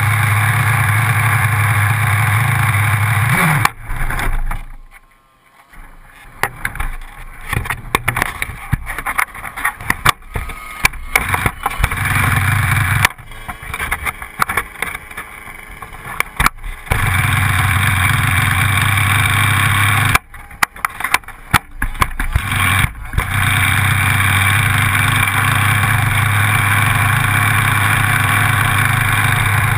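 A small two-stroke RC buggy engine running close by at a steady idle. Three times the steady sound drops away for a few seconds into uneven crackling before the idle comes back.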